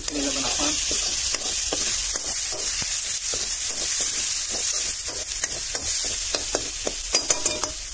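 Tomato and spice masala sizzling in hot oil in a metal kadhai while a metal ladle stirs it, scraping against the pan a few times a second.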